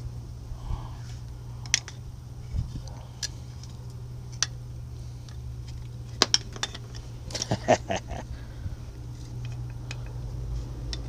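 Heavy-duty drum brake shoes and their steel springs from a 1963 Chevy C20 clinking and rattling as they are handled, a scattering of sharp metallic clicks with a quick cluster of clinks about two-thirds of the way through.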